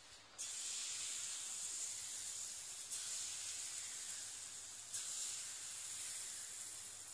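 Yorkshire pudding batter sizzling as it is poured into hot fat in a metal muffin tin: a steady high hiss that starts about half a second in and swells again about three and five seconds in as further rings are filled.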